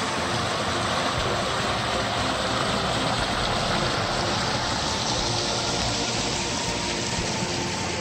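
Mountain stream rushing over rocks at a small cascade: a steady, even rush of water.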